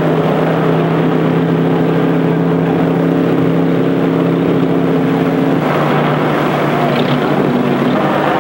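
A motor engine running with a steady droning note, its pitch shifting about six seconds in.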